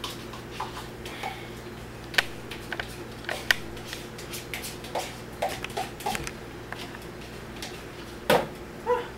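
Scattered light clicks and knocks of a spoon scraping sour cream out of a plastic tub into a mixing bowl, the loudest knocks near the end, over a steady low hum.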